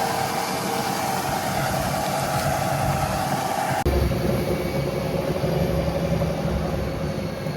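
Farm machinery engine running steadily. About four seconds in the sound changes abruptly to a deeper engine hum.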